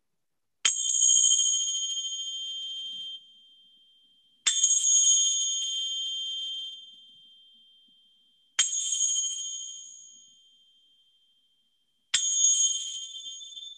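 Small hand cymbals struck together four times, about every four seconds, each strike ringing out with a clear high two-note tone that fades over a couple of seconds. They sound the end of the shavasana relaxation.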